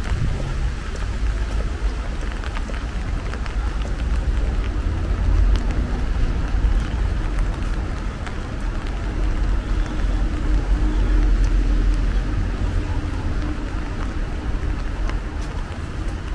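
Steady rain falling on a city street, with scattered close drop ticks over a low rumble of traffic that swells in the middle.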